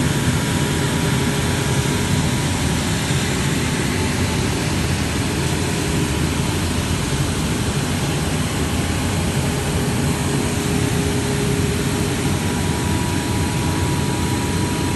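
Timesaver wide-belt grinding and deburring machine running: a loud, steady mechanical drone with a faint steady tone, unchanging throughout.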